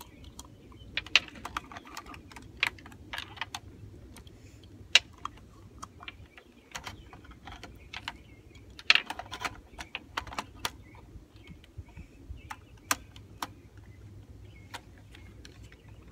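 Irregular small clicks, taps and rattles of plastic and metal parts as a Polaroid flash gun is handled and fitted onto a Polaroid model 104 Land camera, some in quick clusters, over a faint steady low background.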